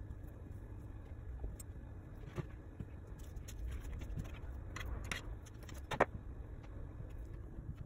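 Small tools and objects handled on a tabletop during clay work: a few light taps and clicks, the sharpest about six seconds in, over a steady low rumble.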